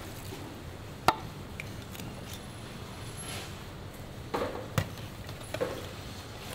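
Cleaver chopping roast meat on a chopping block: a few irregular sharp chops, the loudest about a second in and a small cluster near five seconds, over steady background noise.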